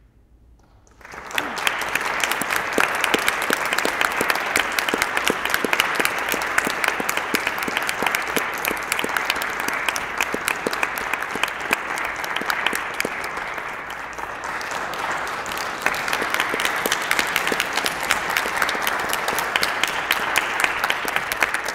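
Audience applauding, starting about a second in, easing slightly past the middle and then picking up again.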